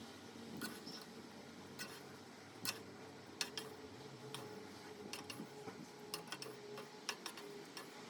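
Light, irregular clicks and taps of kitchen utensils against the pot and bowl as cooked noodles are lifted out of the water, about one click a second at first and coming closer together near the end, over a faint steady hum.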